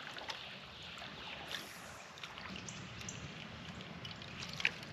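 Faint trickle and lapping of creek water around a kayak drifting downstream on the current, with a few light clicks.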